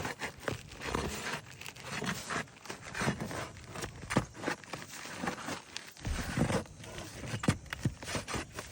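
Irregular scraping and crackling of asphalt roof shingles being pried and worked loose, with scattered sharp clicks.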